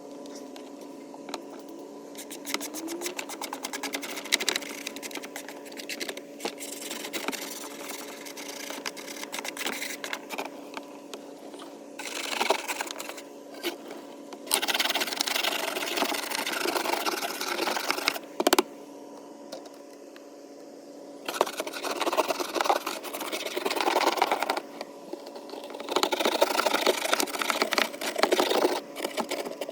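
Metal wire brush scrubbing hard buildup off swamp cooler parts in fast back-and-forth strokes. Light strokes at first, then louder scrubbing spells of a few seconds each with short pauses between.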